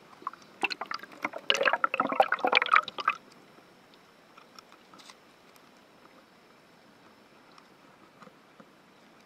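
Water splashing and gurgling around an underwater camera housing as it goes below the surface of a shallow stream: a dense, crackling burst for about three seconds. It then settles to a faint underwater hush with scattered small clicks.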